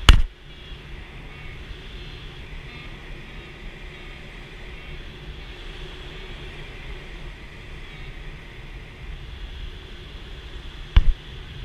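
Steady rush of airflow over an ASK 13 glider's canopy in flight, heard inside the cockpit. A sharp knock comes right at the start, and two short knocks come close together near the end.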